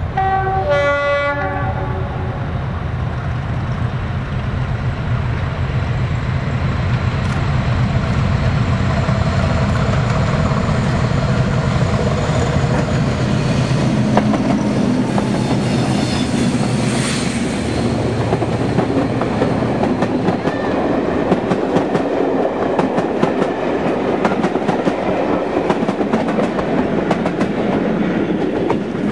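Double-headed diesel train with a Class 50 locomotive leading. A horn sounds briefly near the start, then the heavy engine drone builds and passes close by. After that the coaches' wheels clatter rhythmically over the rail joints as the train runs away.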